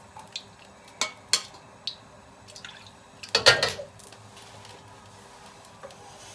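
Metal ladle knocking and scraping against a steel wok while oil is ladled in: a few light clinks, then a louder scrape about three and a half seconds in, over a faint steady hum.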